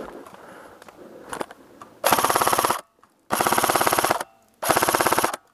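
Airsoft electric rifle firing on full auto: three bursts of rapid, evenly spaced shots, the second the longest, starting about two seconds in after faint rustling of movement.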